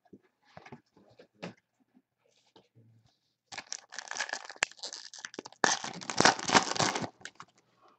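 A trading card pack wrapper being torn open: a few faint handling ticks, then two stretches of loud crinkling and tearing in the second half, the second one the louder.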